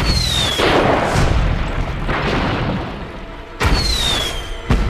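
Cartoon flare gun firing: a sudden bang with a short falling whistle, then a long fizzing hiss. The same bang and whistle come again about three and a half seconds in, and another bang follows near the end.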